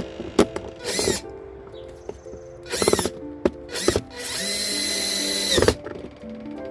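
Power drill-driver running in several short bursts, then one steady run of about a second and a half near the middle, driving screws to fasten the handle onto the shop vac. Background music plays underneath.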